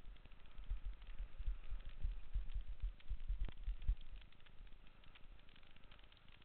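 Mountain bike rolling fast down a dry dirt trail, heard from a loosely mounted helmet camera: irregular low thumps as trail bumps jolt the camera, over a faint hiss. The thumping is heavier for the first four seconds or so, then eases.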